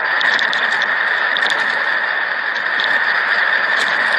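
Sound track of news footage filmed during a strong earthquake: a loud steady rushing noise with faint scattered clicks and ticks.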